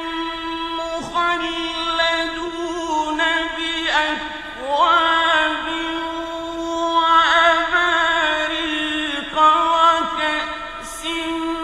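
Quran recitation chanted in a drawn-out melodic style, one voice holding long ornamented notes and sliding between pitches without pause.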